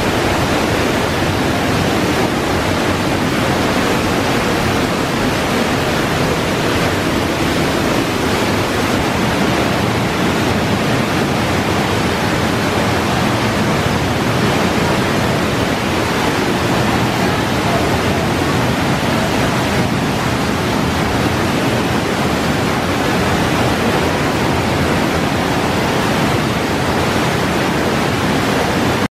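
Waterfall pouring over a rock ledge and splashing onto the rocks below, heard up close: a loud, steady, unbroken rush.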